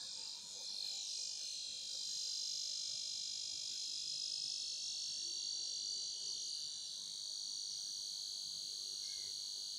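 Ultrasonic rat repeller sounding through its speaker: a steady high-pitched electronic whine, whose pattern shifts slightly about four seconds in.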